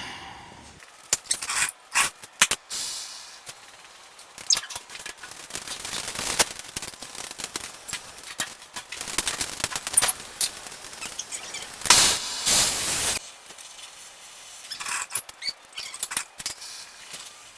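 Metal tool work on rusted exhaust manifold bolts: a run of sharp metallic knocks and clanks. About twelve seconds in comes one loud, dense burst lasting just over a second.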